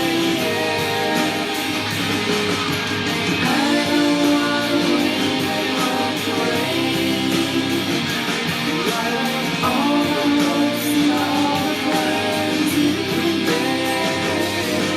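Alternative rock song playing, with electric guitar and a sung vocal line over the band.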